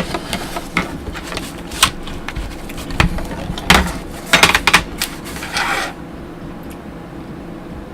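Irregular rustles and sharp clicks and knocks from handling an unrolled fabric wall scroll, ending in a longer rustle about six seconds in, after which only a faint steady hiss remains.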